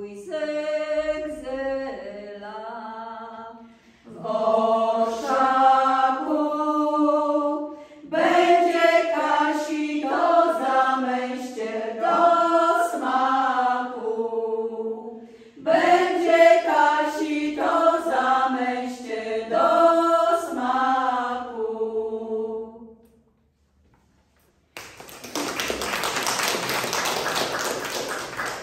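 Several women singing an old Polish folk song a cappella, in phrases and in several voices. The song ends about 23 seconds in, and after a short pause the audience applauds.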